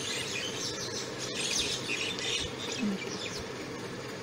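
Birds chirping and twittering in short, scattered calls over a steady low hum, with a single sharp click about a second in.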